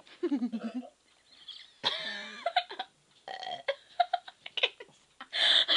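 A girl burping on purpose. A short burp falls in pitch at the start, and a longer one comes about two seconds in, followed by a run of short sharp bursts.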